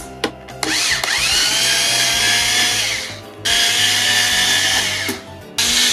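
Cordless electric screwdriver whirring in three runs as it backs out the case screws of a CD micro system; the first run starts about half a second in with a rising whine as the motor spins up, then holds a steady pitch.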